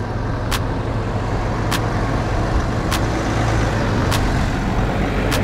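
Pickup truck towing a camper trailer crawling over a rocky dirt track, its low engine rumble slowly growing louder as it nears. A short, sharp tick recurs at an even beat, about once every 1.2 seconds.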